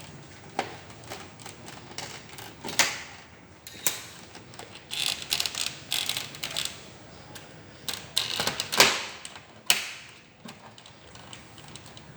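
Plastic latches of an HP 200 G3 All-in-One PC's back casing snapping and crackling loose as the cover is pried off: a run of sharp clicks and creaky crackles, loudest near the end. These snaps are the normal sound of the clips releasing, not the plastic breaking.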